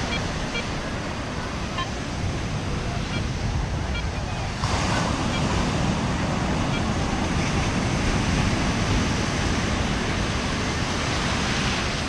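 Ocean surf washing onto a beach, with wind on the microphone; the noise steps up suddenly a little before five seconds in.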